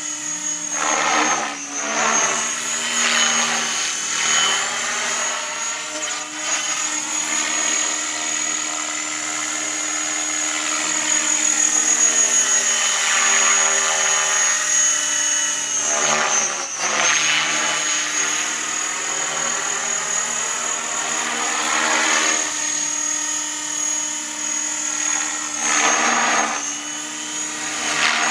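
Align T-Rex 550E electric RC helicopter in flight: a steady high whine from its motor and drivetrain under the whir of the rotor, with the pitch sliding up and down as it moves about. The rotor swells into loud whooshes about six times as it flips and rolls.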